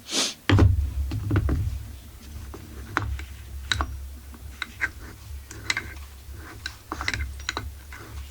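Light, irregular clicks and taps from small chainsaw engine parts and an oil bottle being handled, over a low rumble.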